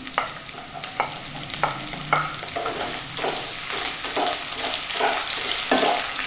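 Chopped garlic, ginger, green chillies and curry leaves sizzling in hot oil in a non-stick kadai, stirred so the utensil scrapes across the pan in repeated strokes, about three a second in the second half. This is the sauté stage that cooks off the raw taste of the garlic and ginger.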